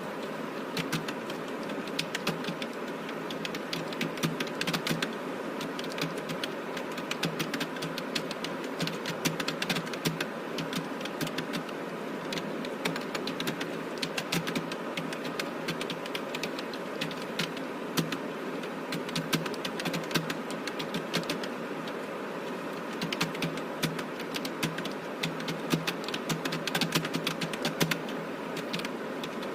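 Computer keyboard being typed on quickly, keystrokes clicking in an irregular stream with short pauses, over a steady background hum.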